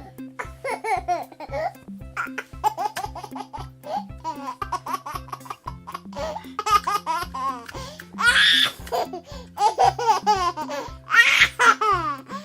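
Children's background music with a steady beat, overlaid with bursts of baby laughter and giggling, loudest twice in the second half.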